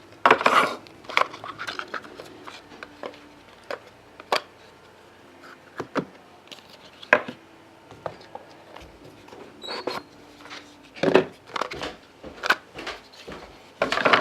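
Trading cards and their holders being handled and set down on a table: scattered clicks, taps and light rustling, with louder knocks about a second in and around eleven seconds in.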